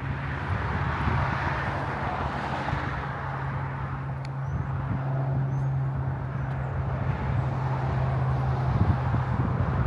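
Steady low engine hum with the rushing noise of a passing vehicle, which swells in the first few seconds and then eases off.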